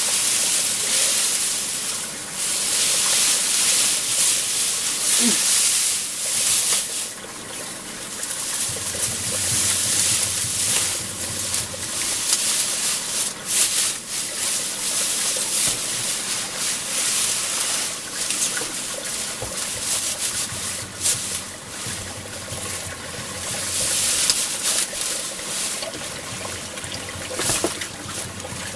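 River water rushing and splashing: a loud steady hiss with frequent short splashes.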